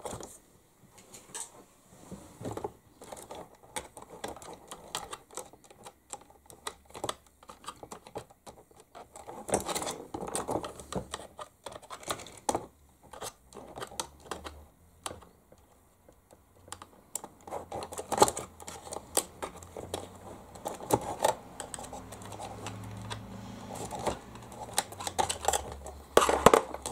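Irregular clicks and taps of hands handling the plastic body and chassis of a 1/16 scale RC truck while tucking wires into place, busier in a couple of short stretches.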